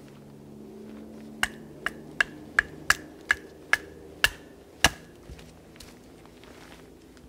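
A wooden baton knocks on the spine of a bushcraft knife, driving the blade down through a piece of wood. There are nine sharp strikes at a little over two a second, each with a brief metallic ring from the blade. A few fainter taps follow.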